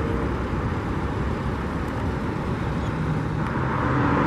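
Road traffic: a steady rush of passing cars, with a vehicle's engine hum growing louder near the end.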